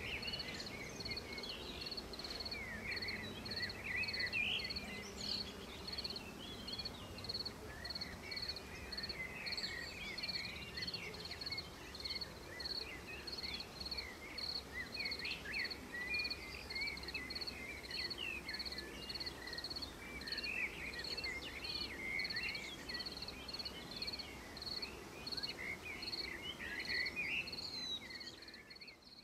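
Small birds singing in short, quick chirpy phrases, with a high short chirp repeating evenly about one and a half times a second throughout, over a faint low rumble.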